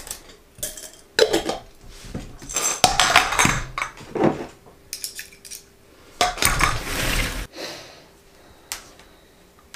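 Clinks, knocks and clatters of glass jars, scissors and other small craft tools being picked up and set down on a cutting mat, in several separate bursts. A longer rustling scrape comes about six seconds in.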